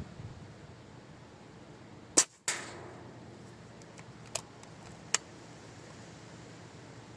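A single sharp shot from a PCP air rifle about two seconds in, followed by a short decaying tail. Two smaller, quieter clicks come a couple of seconds later.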